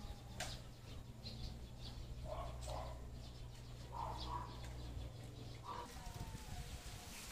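Birds calling: scattered short high chirps and a few louder, lower calls in pairs. A low steady hum underneath stops about six seconds in.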